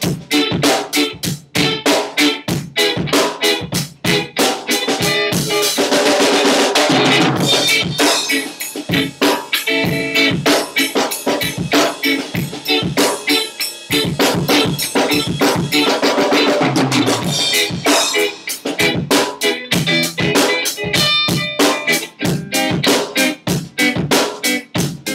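A Tama drum kit played in a fast, busy groove, with bass drum, snare and cymbals. An electric guitar plays along through an amplifier underneath the drums.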